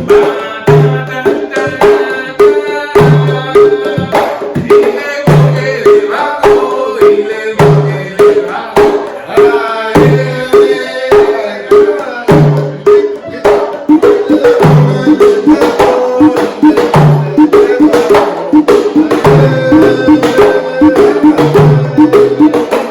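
Several hand drums playing an interlocking rhythm together: quick ringing strokes over a deep low drum note that returns about every two and a half seconds. The playing grows fuller and busier about halfway through.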